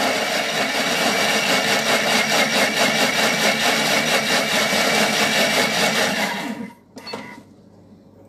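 Thermomix food processor running at speed, its blades blending oranges into a puree: a loud, steady whirring that cuts off about six and a half seconds in.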